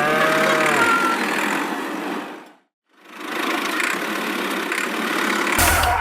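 Small engine running with a rough, steady rattle. It cuts out abruptly about two and a half seconds in and picks up again half a second later, and a louder low hum comes in near the end.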